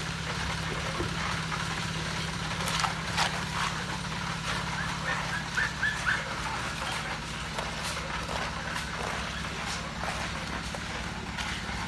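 An engine runs steadily with a low drone, while scattered sharp knocks and taps of work sound over it, with a few short chirps near the middle.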